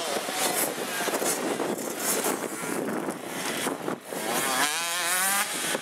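Motocross bike engines running and revving on a dirt track. Near the end a nearer bike's engine comes through clearly, its pitch wobbling up and down rapidly.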